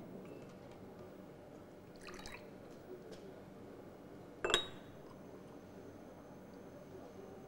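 A faint clatter about two seconds in, then a single sharp clink with a brief ring about four and a half seconds in, over quiet room tone.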